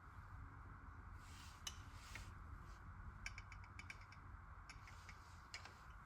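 Near silence: faint steady hiss with a few scattered light clicks and taps, including a quick run of small clicks about halfway through, as small parts are handled.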